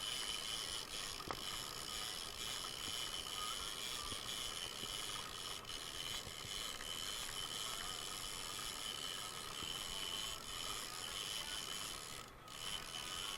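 Fishing reel being cranked, a steady mechanical whirr.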